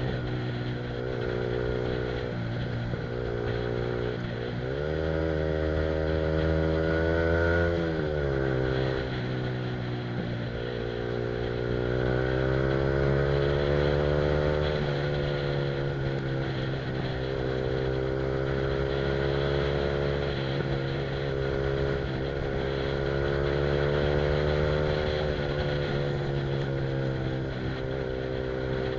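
Yamaha R15's single-cylinder engine through an aftermarket Akrapovic exhaust, cruising on the road. The revs climb about five seconds in and drop back around eight seconds, then rise again a few seconds later and settle to a steady note.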